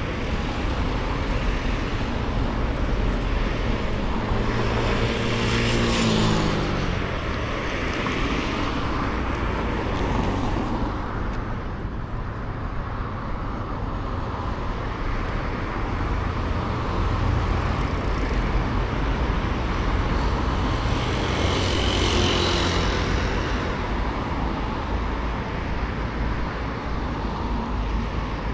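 Road traffic: a steady hum of traffic with vehicles passing, one about five seconds in whose engine pitch drops as it goes by, another about twenty-two seconds in.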